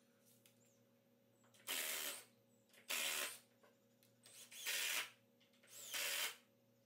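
A hand or power tool working in four short bursts, each about half a second long, roughly a second apart, while the wooden frame is being built.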